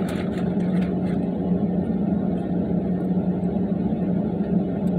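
Steady hum of a pickup truck running while parked, heard inside its cab.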